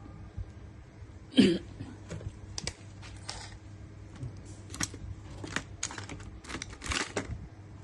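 Irregular small clicks and taps, like tools and parts being handled on an electronics workbench, with one louder knock about a second and a half in, over a steady low hum.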